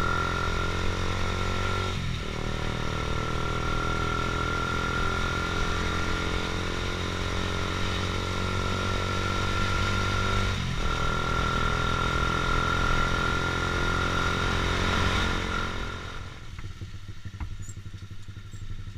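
Honda CBR150R's single-cylinder engine running while riding, with two brief breaks about two and eleven seconds in, as when gears change. About sixteen seconds in it drops away as the bike eases off.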